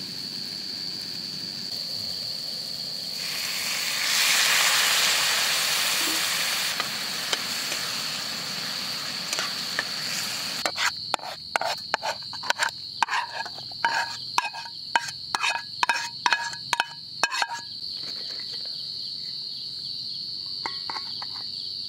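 Crickets trilling steadily at a high pitch. A hiss swells from about three to seven seconds in. From about eleven to seventeen seconds a spoon clatters rapidly against a metal cooking pan, ringing knocks while stirring; this is the loudest part.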